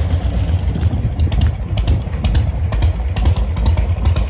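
Vintage Harley-Davidson V-twin motorcycle engine idling with a pulsing low beat and scattered light mechanical ticks.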